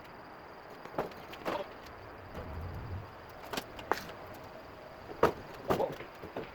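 A pickup truck bed resting on a homemade wooden 2x4 cradle with large wheels, pushed by hand: a string of separate knocks and clunks, with a short low rumble of rolling partway through.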